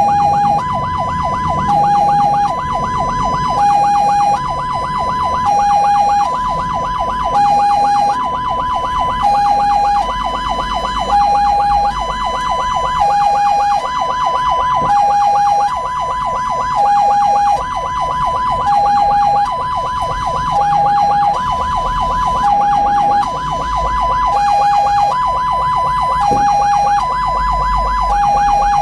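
Ambulance's two-tone hi-lo siren, switching between a higher and a lower pitch about once a second, over the low rumble of the vehicle moving on the road.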